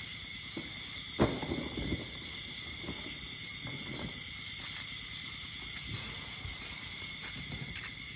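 Steady night chorus of insects, a continuous high trilling at two pitches. A sharp knock with brief rustling comes about a second in, and softer rustles and thuds follow.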